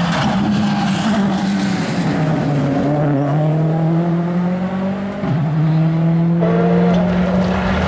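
A 2013 World Rally Car's 1.6-litre turbocharged four-cylinder engine accelerating hard. The pitch climbs steadily and drops sharply with upshifts about three and five seconds in.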